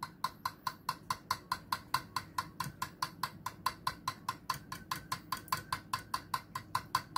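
Fork beating raw eggs in a ceramic bowl, clinking against the side of the bowl in a steady rhythm of about five strokes a second.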